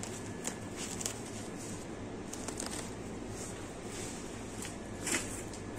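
Supermarket background noise: a steady low hum with scattered faint clicks and rustles, and one sharper click about five seconds in.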